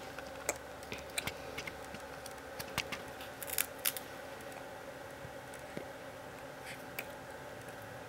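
Cracker being bitten and chewed: sharp, crisp crunches, several in the first four seconds and one more about seven seconds in.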